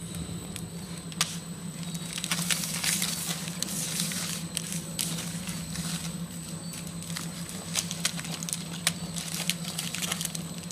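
Automatic packing machine running with a steady low hum. Filled plastic snack sachets crinkle and rustle over it, with many sharp clicks.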